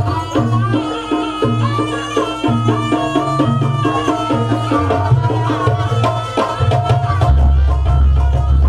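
Jaranan music for the dance: hand drums beating under a quick stepping melody line. About seven seconds in a deep low tone comes in and holds.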